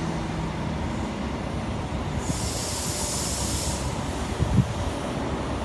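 A departing CrossCountry HST's coaches rolling slowly out of the platform, with a steady low rumble. About two seconds in, a high hiss lasts for about a second and a half, and a short thump follows near the end.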